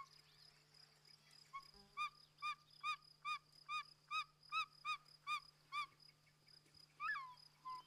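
Short-toed eagle calling: a run of about a dozen short, clear whistled notes, roughly three a second. Near the end comes one longer whistle that slides down in pitch and then holds.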